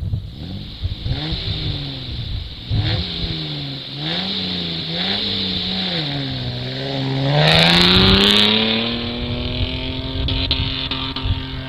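Four-wheel-drive vehicle's engine driven hard, revving up and down several times, then climbing to a loud, sustained high rev held to the end. A brief rushing hiss comes at the loudest point, about two thirds through.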